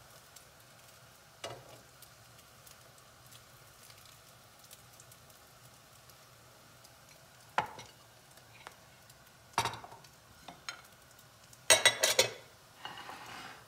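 French toast sizzling faintly in a nonstick frying pan, with several sharp knocks and scrapes of a slotted spatula against the pan. The loudest clatter comes near the end.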